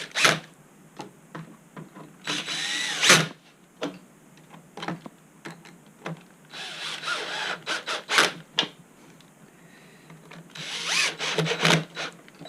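Cordless drill-driver running in short bursts of about a second each, three or four times, driving screws into the board's float plate, with light clicks of handling between the runs.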